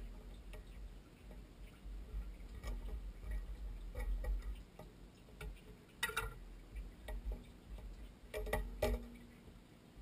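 Irregular small metal clicks and taps of a screwdriver and gloved hands working on a well pump pressure switch and its fittings, with a few louder clicks about six seconds in and near the end. A low rumble of handling noise lies underneath.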